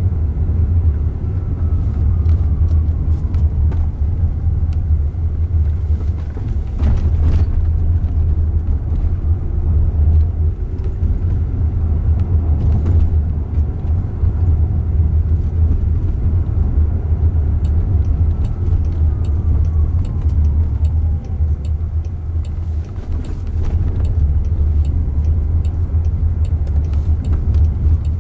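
Steady low road and tyre rumble heard inside the cabin of a moving Waymo Jaguar I-Pace electric car. From a little past halfway, a light, evenly spaced ticking joins in, fitting the turn signal before an upcoming turn.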